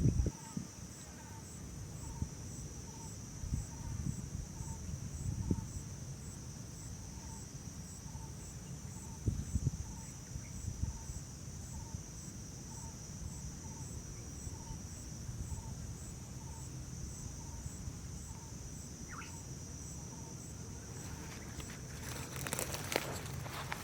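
Steady high-pitched insect chorus with a regular pulsing, over low thumps and rumble, with a rustling, crackling stretch near the end.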